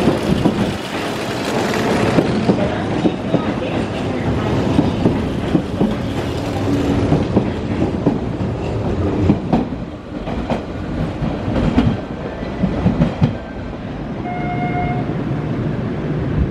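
Hanshin 5001-series electric commuter train running past along the platform, its wheels clattering over rail joints amid steady rumbling track noise that eases somewhat in the second half. Near the end a brief steady beep sounds.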